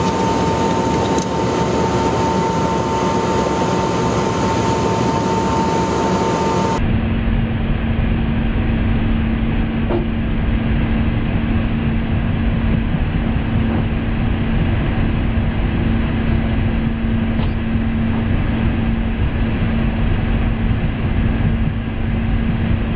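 Eurocopter AS350 helicopter's turbine and rotor running at close range as it lifts into a low hover: loud, steady rotor and engine noise with a constant hum. About seven seconds in the sound suddenly turns duller.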